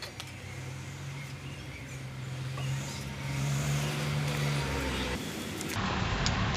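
A motor running with a steady low hum that swells slightly midway and stops shortly before the end, with light clicks and hiss over it.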